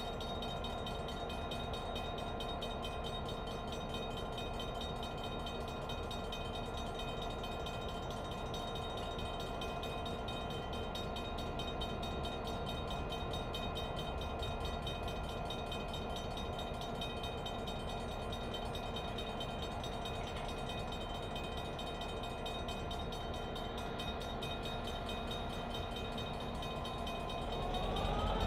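EMD GP9 diesel-electric locomotive's 567 two-stroke diesel engine running steadily at low power, with an even, unchanging hum.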